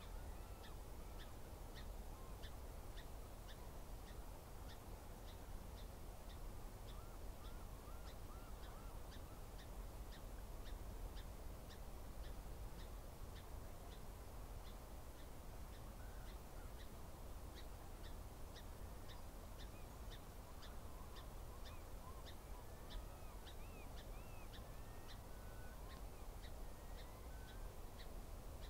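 Faint outdoor estuary ambience: a steady low rumble of wind or moving water, with a regular series of short high ticks about twice a second and scattered distant bird calls.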